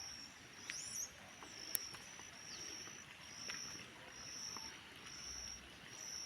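Countryside ambience: a high chirp repeats evenly about once a second. Over it, a bird gives a couple of short, sharp calls that sweep down in pitch.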